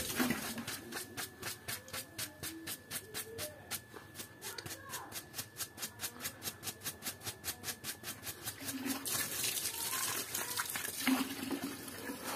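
Small stiff-bristled hand brush scrubbing wet, soapy fabric in quick, even strokes, about five a second. Near the end it turns into denser, continuous scrubbing.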